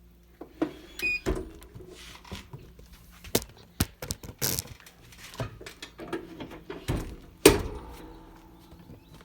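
A string of irregular knocks, clicks and thuds from handling things on a heat-press setup, ending with one heavy thud about seven and a half seconds in.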